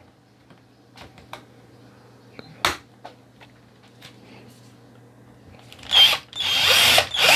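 Handheld electric drill starting up about six seconds in and running steadily as its bit drills into the head of a stripped tri-point screw on an iPhone 7's internal bracket. Before that, a quiet stretch with a few small clicks and one sharp click.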